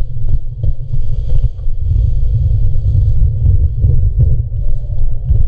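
Loud low rumble of wind buffeting and handling noise on a mask-mounted GoPro action camera while the wearer moves quickly, with irregular short knocks throughout.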